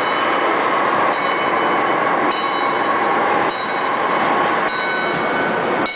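Small amusement-park ride train running along its track: a loud, steady rumble and rattle with a sharper high-pitched sound recurring about every second and a bit.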